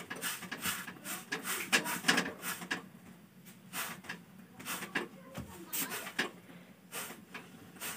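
Irregular light knocks and rubbing as a roti is pressed down and shifted by hand on a tawa griddle over a gas stove, the pan knocking on the burner.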